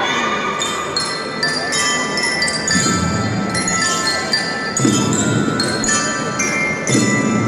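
Marching band playing: a bright glockenspiel (bell lyre) melody of quick, stepped notes over drums, with heavier drum hits about every two seconds.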